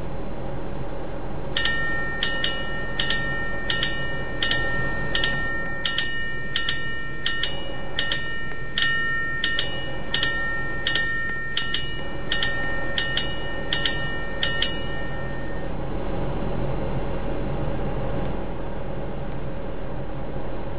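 Air conditioner units running with a steady whooshing hum. From about a second and a half in until about fifteen seconds, metal chimes ring over it in a quick series of strikes, roughly two a second, each ringing on at several fixed pitches.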